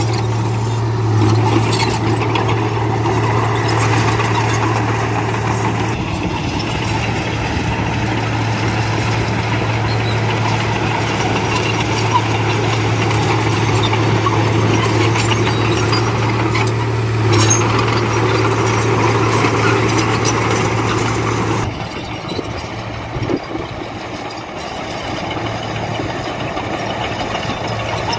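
Heavy earthmoving machine's diesel engine running steadily under load with a strong low hum. About three-quarters of the way through it suddenly drops to a quieter, lower running.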